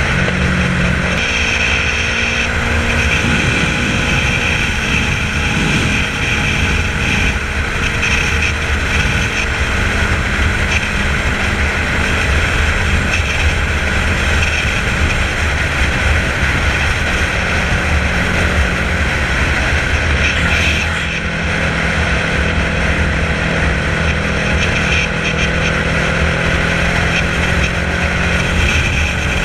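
Kawasaki ER-6n's parallel-twin engine running steadily at a highway cruise of about 120 to 130 km/h, mixed with steady wind noise. There is a brief dip in level about twenty seconds in.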